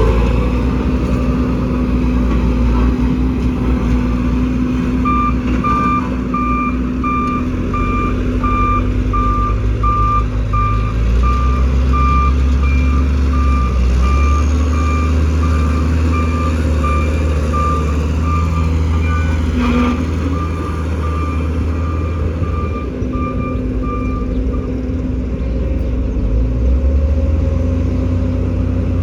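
Bulldozer's diesel engine running under load, its low note shifting as it works, with the reversing alarm beeping at an even pace from about five seconds in until a few seconds before the end.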